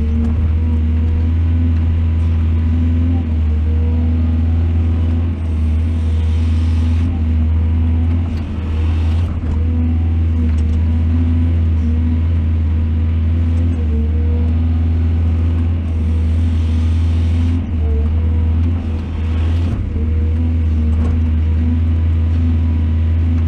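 Large excavator's diesel engine running steadily at a constant pitch, a deep hum, with a few brief hissing bursts.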